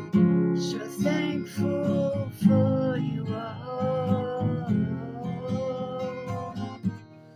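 Acoustic guitar strumming chords in a slow song intro, dying away near the end.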